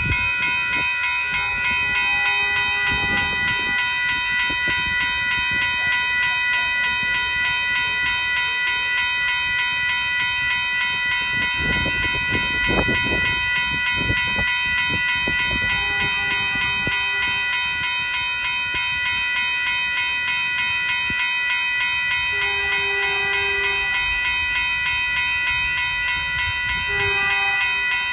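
Railroad grade-crossing warning bell ringing rapidly and without a break, the signal that a train is approaching the crossing. A short low rumble comes about halfway through.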